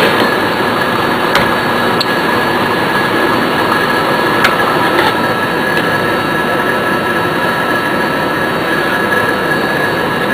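A hole saw cutting through a metal truck instrument panel in a powered machine: a steady whirring, grinding cut with a high steady whine and a few sharp clicks.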